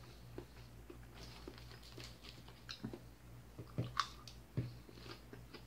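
A person chewing a mouthful of crisp leafy salad greens, with faint crunching and small clicks.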